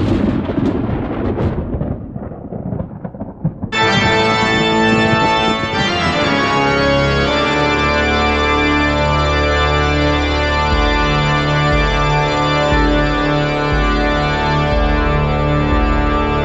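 Organ music: sustained, full organ chords that come in suddenly about four seconds in, with a low pulsing bass line joining a few seconds later. Before the organ there are a few seconds of irregular noise with sharp strikes.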